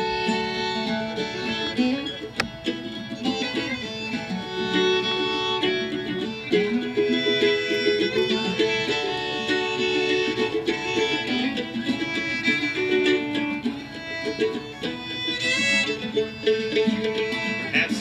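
Acoustic string band playing an instrumental break: a fiddle carries the melody over plucked mandolin and guitar.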